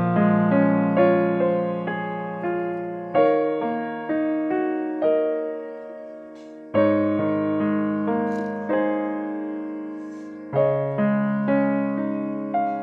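Background piano music: slow, gentle notes and chords struck and left to ring out, with a fresh chord every few seconds.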